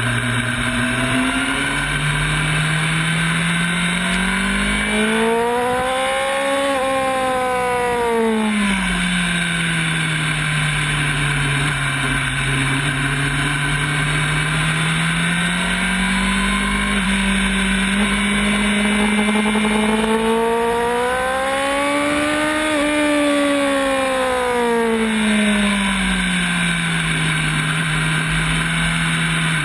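Sport motorcycle engine heard from a camera mounted on the bike, its pitch climbing and falling back twice as the rider opens and closes the throttle, with wind noise underneath.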